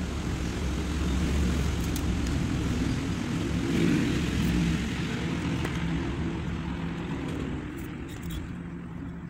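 Low engine rumble of something passing, loudest about four seconds in and then slowly fading away, with a few light clicks near the end.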